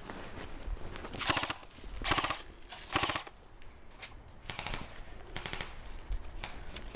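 Airsoft guns firing about five short full-auto bursts of rapid, evenly spaced cracks, a second or so apart.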